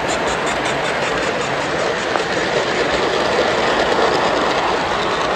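G scale model train running on its track, with a fast rhythmic clicking of about five a second that fades out in the first second, leaving a steady running noise.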